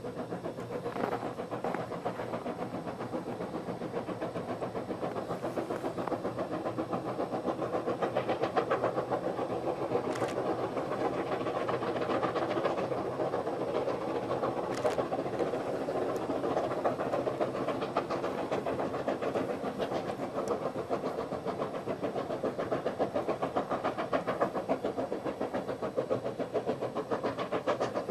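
QJ-class steam locomotives working hard at the head of a long freight train, their exhaust beats coming in a steady, rapid rhythm.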